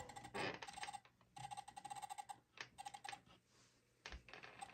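Faint rapid clicking, like buttons being pressed, with short stretches of a steady mid-pitched whine. This is a DCC throttle being worked as an N-scale model diesel locomotive is selected and set moving along the track.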